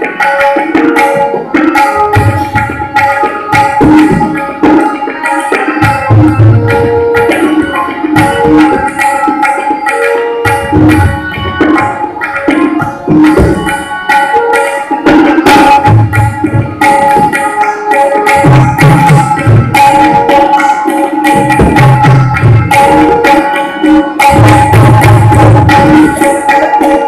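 Tabla solo in teentaal: a rapid run of strokes on the tabla, with deep bass strokes from the bayan coming in recurring stretches. A harmonium plays a steady repeating lehra melody underneath.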